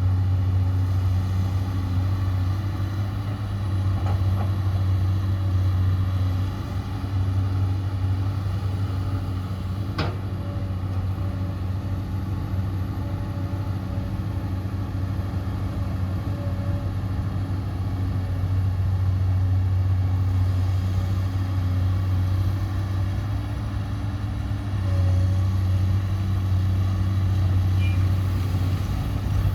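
Radio-controlled construction models' motors running with a steady hum that swells and eases a few times, and a single sharp click about ten seconds in.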